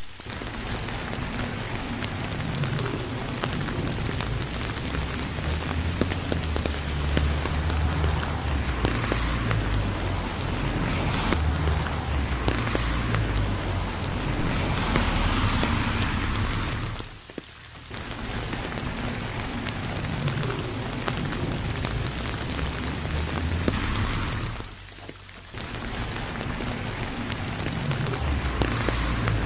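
Steady rain falling, a dense hiss of many drop ticks over a low rumble. The sound briefly falls away twice, about halfway through and again later.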